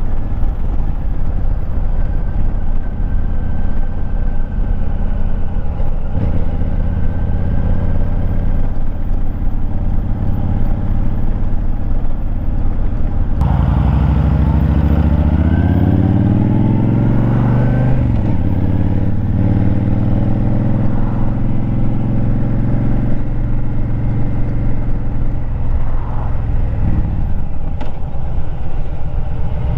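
Motorcycle engine running under way, picked up by a mic mounted on the bike. The engine note steps up and rises through the revs from about halfway through, drops sharply at a gear change, and climbs again near the end.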